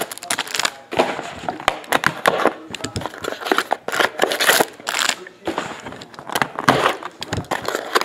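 A cardboard trading-card box and plastic-wrapped card packs being handled and opened by hand: an irregular run of rustling, crinkling and small clicks and taps.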